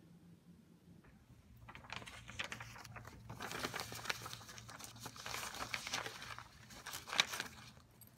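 Sheets of printed paper and a fabric backpack rustling and crinkling as the papers are pushed into the bag, starting about two seconds in, with a sharp click near the end.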